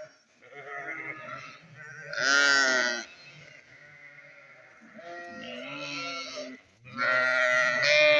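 Sheep bleating: a series of calls, two of them loud, about two seconds in and again near the end.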